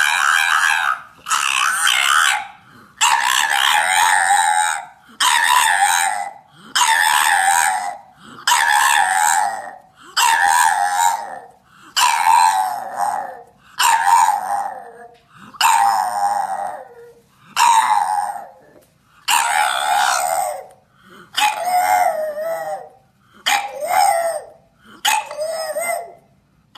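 French bulldog howling over and over, about sixteen howls in a row, one every second and a half or so. Each howl slides down in pitch, and the later ones are shorter.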